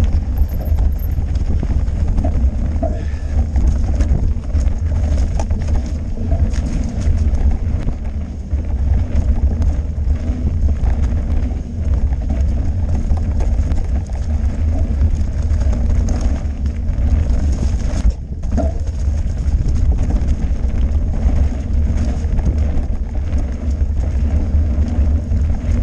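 Mountain bike riding fast down a dirt trail: a heavy, steady rumble of wind buffeting the microphone, with constant rattling and clattering from the bike and tyres over the rough ground.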